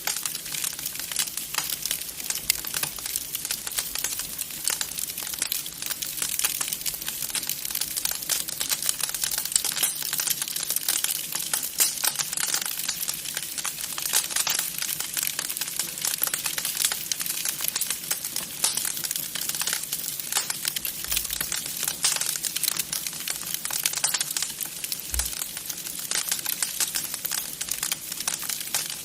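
Wood fire crackling in a fireplace, a dense, steady run of small snaps and pops.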